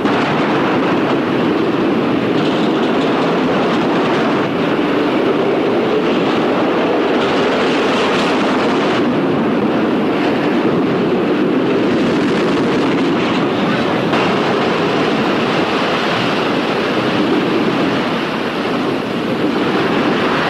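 Roller coaster cars running along the track: a steady, dense rattling noise.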